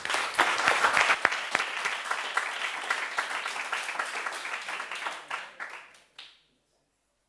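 Audience applauding, dense clapping that thins and fades out about six seconds in.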